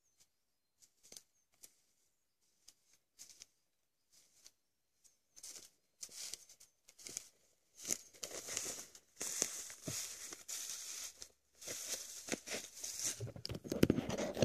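Footsteps rustling through dry leaf litter, twigs and spruce brush: sparse faint crackles at first, then denser and louder as the walker comes close from about six seconds in. A sharper knock of the camera being handled comes near the end.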